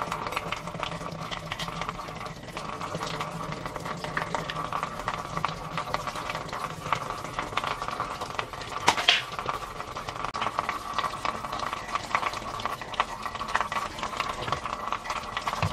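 Tap water running into a ceramic washbasin while the basin is scrubbed with a sponge, giving a steady rush with scratchy rubbing over it. A single sharp knock stands out about nine seconds in.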